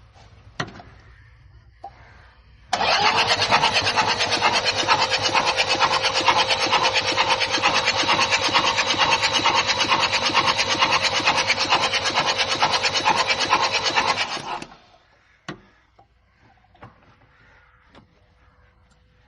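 A common-rail diesel engine cranked on its starter motor for about twelve seconds, a steady starter whine under regular pulses, then cut off without the engine catching. This is the long cranking with no start of a diesel with a suspected injector fault.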